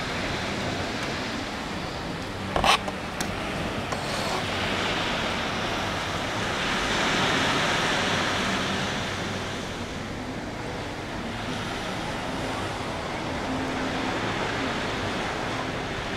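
Ocean waves washing ashore as a steady hiss that swells about seven seconds in. A sharp knock sounds a little under three seconds in, with a smaller one just after.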